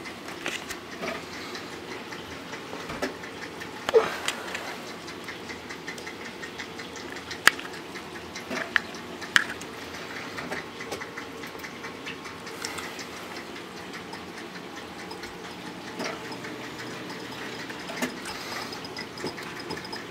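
A steady hum with a handful of sharp clicks scattered through it, the loudest about four seconds in and about seven and a half seconds in.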